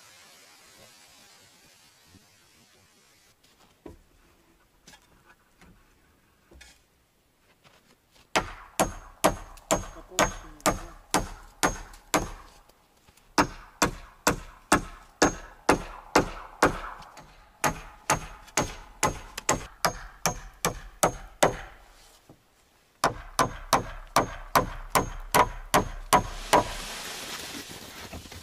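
Hammer nailing together a frame of wooden poles: sharp, evenly spaced blows about two a second, each with a slight metallic ring. The blows come in three runs with short pauses between them, after a quiet first eight seconds or so.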